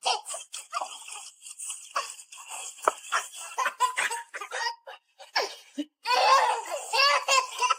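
A person laughing in short, choppy bursts, breaking into a longer and louder bout of laughter about six seconds in.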